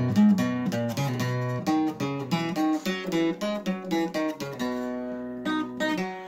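Acoustic guitar picking a quick ornamental run of single notes (a requinto-style fill). A held note rings for about a second near the end, followed by a few more picked notes.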